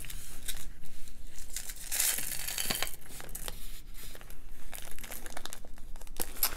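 Small clear zip-top plastic bag crinkling as it is handled, with beads clicking against one another inside, and a louder rustle about two seconds in.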